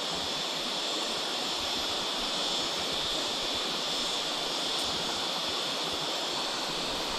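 Steady rush of a flowing jungle river, an even hiss of running water with a faint high-pitched whine mixed in.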